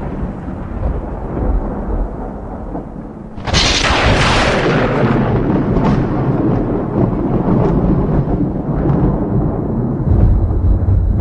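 Thunder: a low rumble, then a sharp close thunderclap about three and a half seconds in that rolls on as a long, fading rumble, swelling again near the end.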